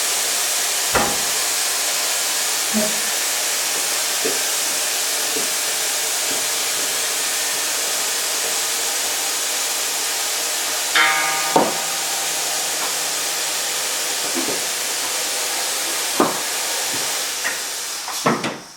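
Vehicle lift lowering a truck frame, with a steady hiss of air or fluid that cuts off suddenly near the end as the lift is stopped. Scattered metal knocks run through it, and a brief squeal comes about eleven seconds in.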